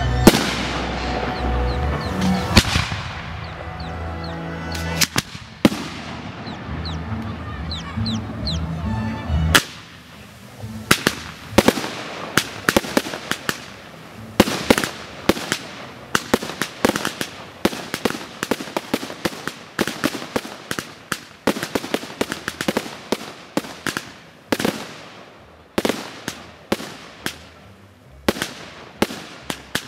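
Fireworks display: music plays over firework bangs for about the first ten seconds, then the music cuts off and a long run of sharp bangs and crackles follows, several a second.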